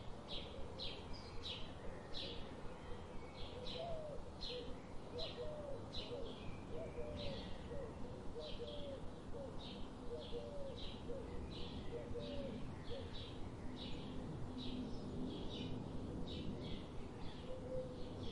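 Colored pencil shading on paper: short rhythmic scratching strokes, about two a second, as the pencil goes back and forth.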